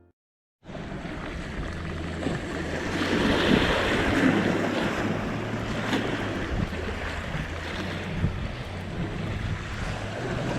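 Seaside wind buffeting the microphone over the wash of waves, a steady rushing noise that swells and eases, starting suddenly about half a second in.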